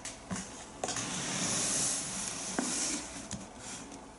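Rustling, rubbing noise as a spiked suede sneaker is handled and turned around on the surface beneath it, with a few light knocks.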